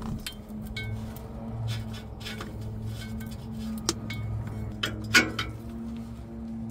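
Scattered metallic clinks and taps of hand tools, some ringing briefly, with a sharper clink about five seconds in, over a steady low hum and background music.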